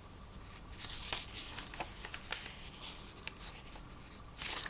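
Pages of an old hardback book being turned by hand: soft paper rustles and small clicks, with a louder rustle near the end.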